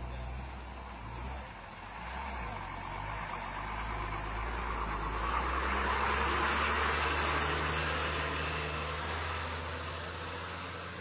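A motor vehicle's engine running, with a low steady hum whose pitch shifts now and then, and a rush of road noise that builds to a peak about six seconds in and then eases.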